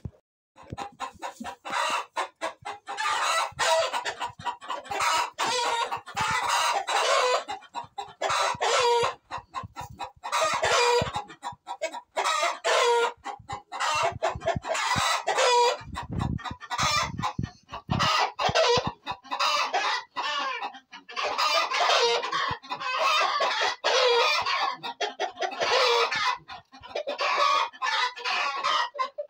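A flock of chickens clucking and calling continuously, many birds overlapping, with rooster crows among them.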